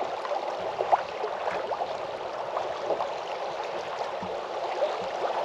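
Small waves lapping and splashing against a fishing kayak's hull, a steady watery noise with a few faint knocks and ticks.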